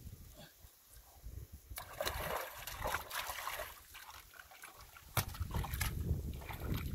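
Water splashing and sloshing in irregular bursts over a low rumble, loudest from about two seconds in and again after five seconds.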